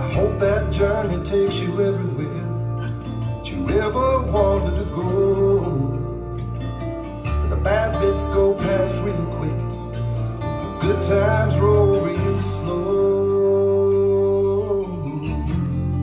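A song with guitar, bass and singing, played back from a cassette tape on a Nakamichi ZX-7 deck. The tape was recorded on a Sony TC-K555ESA.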